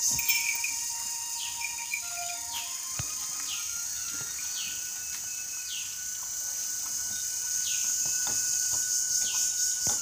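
Outdoor ambience: a steady high-pitched insect drone, with a bird repeating short falling calls about once a second and a few faint knocks.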